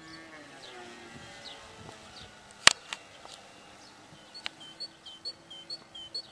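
Electric RC pattern airplane's motor humming in flight; its pitch drops slightly early on as it passes, then fades. One sharp click comes a bit before the middle. A series of short, high, falling chirps about twice a second starts about two-thirds of the way in.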